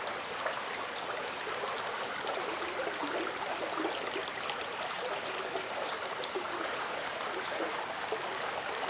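Shallow creek flowing over pebbles and a flat sandstone bed: a steady sound of running water.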